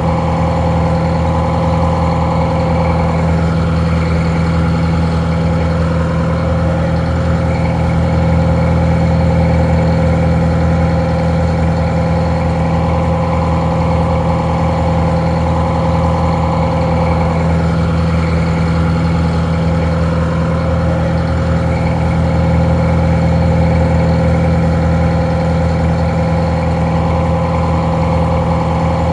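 Detroit Diesel 4-71 two-stroke, four-cylinder diesel engine idling steadily with an even, a little muffled drone. The loudness swells slightly twice.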